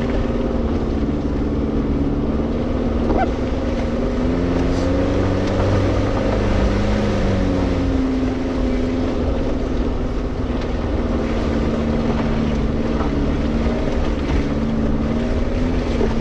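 Suzuki Jimny engine running steadily while driving off-road at low speed; the revs rise a little about four seconds in and drop back about halfway through.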